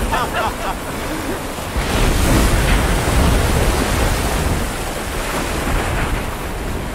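Storm at sea: gusting wind and heavy waves breaking, over a steady low rumble, with faint shouting fading out in the first second.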